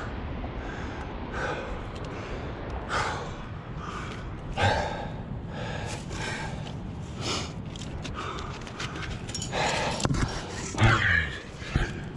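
A climber breathing hard in gasps while hand-jamming up a granite crack, one heavy breath about every second and a half, coming thicker near the end.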